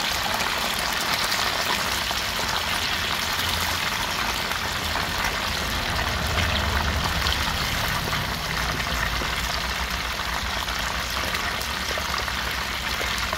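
Pieces of tilapia sizzling steadily as they deep-fry in hot oil in a skillet, turning brown and crispy, with a low rumble underneath that is strongest around the middle.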